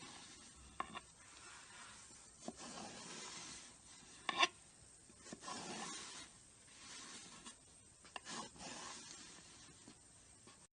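Slime being squished and stretched by hand: soft, irregular squishing with small crackling pops, the loudest a little over four seconds in.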